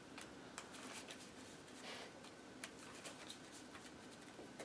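Faint handling of a sleeved deck of playing cards on a wooden table: soft rustling with a few quiet clicks, barely above room tone.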